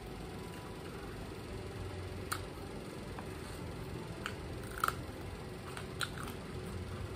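Eating sounds up close: a few short sharp clicks and crunches as a fresh green chilli is bitten and chewed, over a steady low hum.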